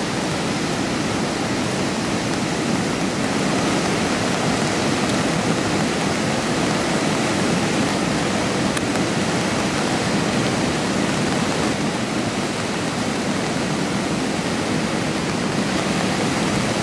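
The Garonne in flood: a fast, muddy torrent of swollen river water rushing and churning in a steady, loud, continuous noise.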